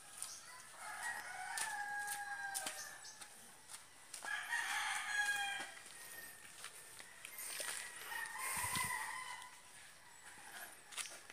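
Roosters crowing: three long crows, one about every three and a half seconds, at slightly different pitches.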